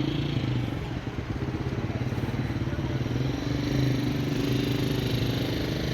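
Motor vehicle engine running steadily, a low hum with a fine rapid pulse that swells and eases slightly.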